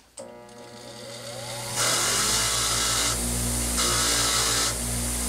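Bench grinder switched on, its motor whine rising as it spins up to speed, then a soft wire wheel scrubbing corrosion off a Tillotson HS carburetor part in loud rasping passes with short breaks.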